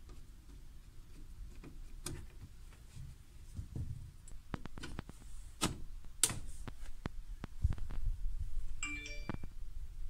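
Clicks, knocks and handling sounds as a Wi-Fi touch wall switch is screwed into its wall box and its glass front panel is pressed on. A short electronic beep follows near the end.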